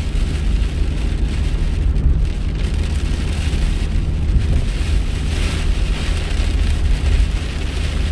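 Heavy rain on a moving car, heard from inside the cabin: a steady hiss of rain and wet tyres over a low engine and road rumble.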